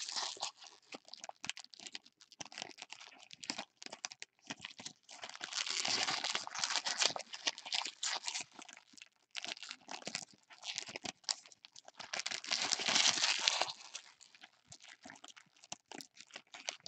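Foil wrappers of 2014 Topps Chrome football card packs crinkling and tearing as they are opened and handled, in irregular bursts of crackle with sharp clicks, the longest about six seconds in and again about thirteen seconds in.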